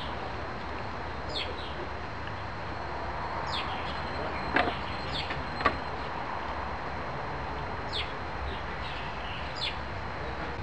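A small bird chirping over and over, each call a short note falling sharply in pitch, every second or two, over a steady background hiss. Two sharp clicks, the loudest sounds, come about halfway through.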